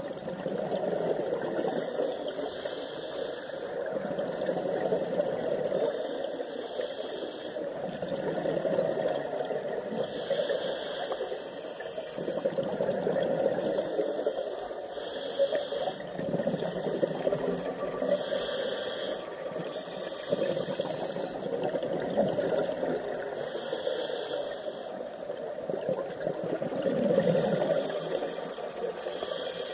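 Scuba diver's regulator breathing heard underwater: a hiss of inhaled air every few seconds alternating with the bubbling of exhaled air.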